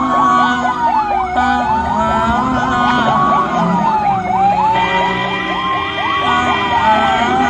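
Ambulance sirens sounding together: a slow wail rising and falling about every three seconds, with rapid yelping sweeps over it. A steady tone joins about five seconds in.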